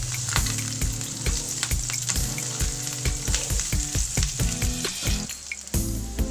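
Chopped onion sizzling in hot oil in a nonstick frying pan as it is stirred, a steady hiss with many sharp ticks and knocks from the stirring and spattering oil.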